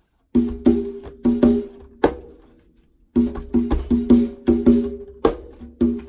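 A pair of conga drums played by hand: sharp ringing strokes start about a third of a second in, break off for about a second near the middle, then come back in a quicker, denser run.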